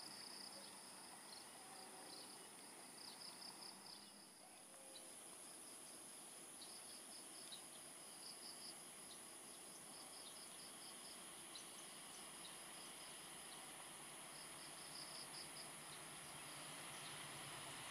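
Insects chirping in short repeated trills over a quiet background hiss. Near the end, the low rumble of an approaching diesel locomotive slowly becomes audible.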